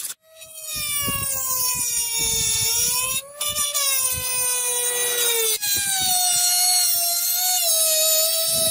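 Electric grinder whining as it grinds the steel katana blade. Its pitch sags slowly under load, breaks off briefly about five and a half seconds in, then picks up again at a slightly higher pitch.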